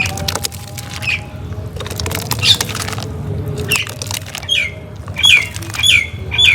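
A bird calling in short, falling chirps, about eight times and faster toward the end, over the soft crackle of damp reused cement being crumbled.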